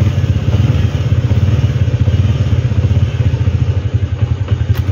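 Modenas Kriss motorcycle's small single-cylinder engine idling with a fast, steady putter, running on its own after starting on the electric starter.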